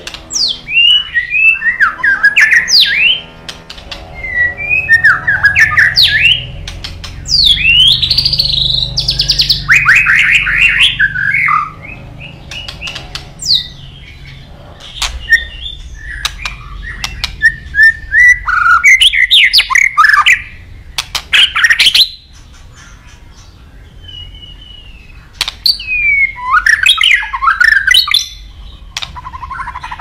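White-rumped shama in full song: loud, varied phrases of clear whistles, rapid trills, swooping notes and sharp clicks, delivered in bursts with short pauses between them.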